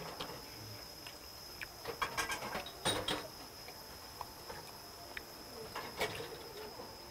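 Close-up mouth sounds of a man chewing steamed lobster meat, with a few sharp wet clicks and smacks, densest about two to three seconds in and again about six seconds in.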